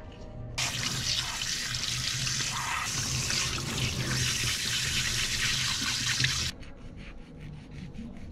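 Tap water running from a spray faucet into a stainless steel sink, splashing over a gutted fish being rinsed by hand. It starts about half a second in and cuts off suddenly about six and a half seconds in.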